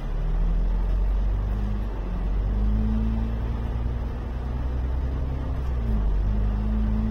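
Diesel engine of an Alexander Dennis Enviro 500 MMC 12.8 m double-decker bus pulling away and accelerating, heard from inside the bus. It is a deep, loud engine drone whose pitch climbs, drops briefly at a gear change about two seconds in, climbs again, and drops once more near six seconds in.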